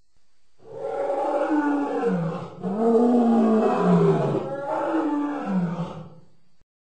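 Lion roaring: three long roars in a row, each dropping in pitch toward its end.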